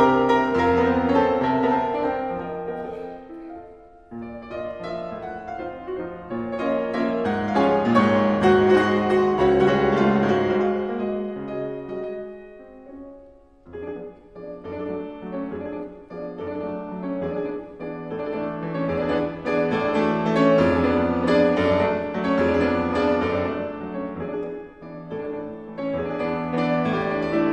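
Background piano music in a classical style, played in phrases with short pauses between them.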